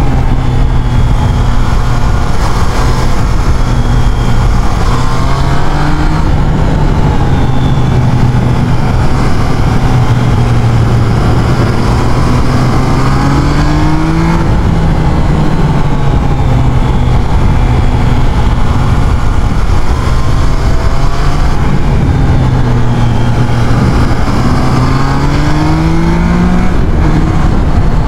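Triumph Trident 660's inline three-cylinder engine under way, its pitch rising several times as it accelerates and falling back in between, over heavy wind rush on the microphone.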